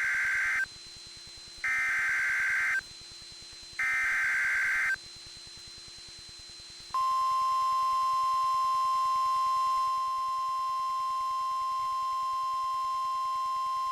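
NOAA Weather Radio emergency alert: three short bursts of the SAME digital header's data tones, then, about seven seconds in, the steady 1050 Hz warning alarm tone begins and holds. Together they signal that a warning message, here a severe thunderstorm warning, is about to be broadcast.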